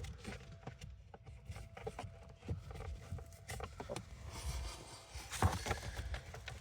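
New cabin filter being wiggled and bent into its housing behind a Citroen Dispatch van's dashboard. Scattered light knocks and scrapes of the filter frame against the plastic, with rustling.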